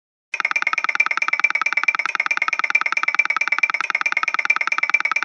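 Japanese railroad crossing warning bell sound ringing very rapidly, about ten strikes a second at a steady pitch, starting a moment in.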